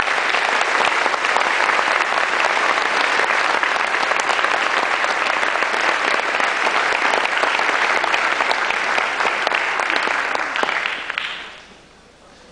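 Audience applauding, loud and steady, dying away about eleven seconds in.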